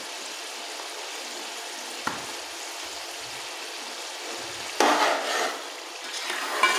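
Potato and pea masala sizzling steadily in an aluminium pot on a gas stove, with a single click about two seconds in. Louder scraping and clatter of a utensil against the pot break in near the end as the salt is worked in.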